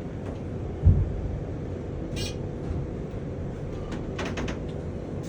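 Hotel elevator with a steady low hum, one heavy thump about a second in, then a brief high squeal and a few quick clicks.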